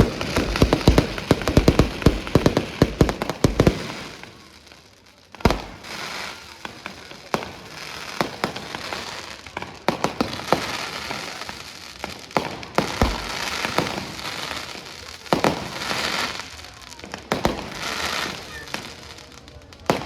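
Fireworks going off: a dense volley of bangs and crackling in the first few seconds, a short lull, then a single loud bang about five seconds in and more shell bursts with crackle at irregular intervals.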